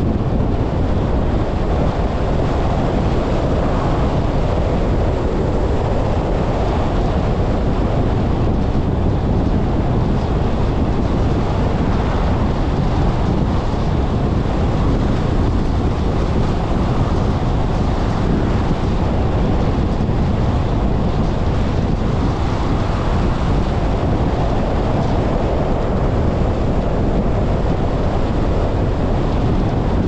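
Steady road noise of a car driving along a highway: tyre rumble and wind rushing over the microphone, unchanging throughout.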